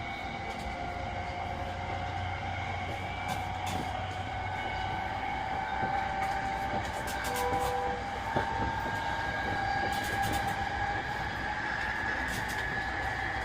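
Running sound inside an E233-3000 series electric train: the traction motors' whine climbs gently in pitch as the train picks up speed, over the steady rumble of the wheels on the rails, with scattered sharp clicks.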